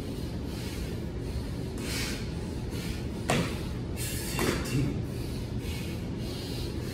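A person doing burpees on a hard floor: short, sudden thuds of hands and feet landing, and huffs of hard breathing, the loudest about three seconds in and again a second later, over steady background noise.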